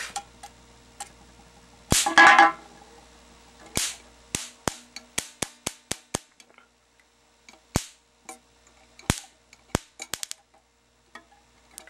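Electric fly-swatter racket's charged wire grid arcing onto an aluminium pop can: a string of sharp electric snaps, irregular and about fifteen in all, coming fast in the middle and thinning out toward the end.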